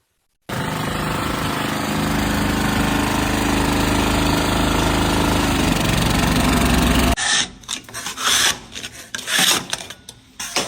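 Loud, steady machine noise for about six and a half seconds that cuts off abruptly, followed by irregular knocks and scraping.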